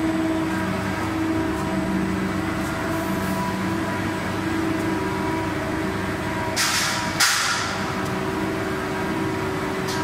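Steady machine hum of a running plastic sheet extrusion line, its motors and pumps holding several fixed tones. Two short, loud hisses come a little past halfway, the second starting sharply and fading.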